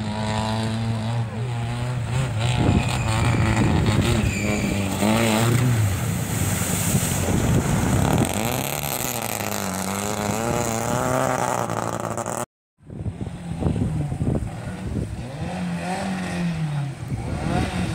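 Rally car engines revving hard, their pitch climbing and falling through the gears, with water splashing as a car fords a shallow river. The sound breaks off abruptly about twelve seconds in and starts again on another pass.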